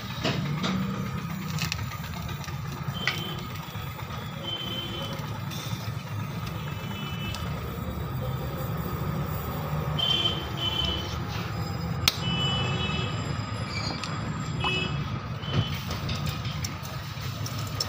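Gas brazing torch flame burning steadily while an aluminium car AC pipe is brazed, with faint short high chirps coming and going several times.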